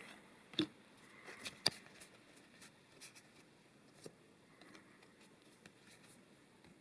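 Trading cards being handled: faint soft clicks and light ticks as cards are slid and flipped over one another.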